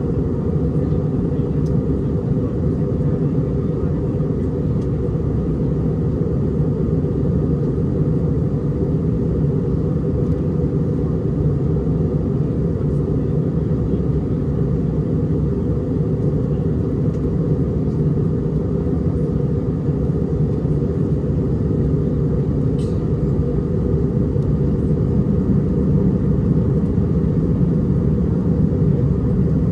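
Steady low drone inside the cabin of an Airbus A319 on approach: engine and airflow noise heard from a window seat. One faint click about three-quarters of the way through.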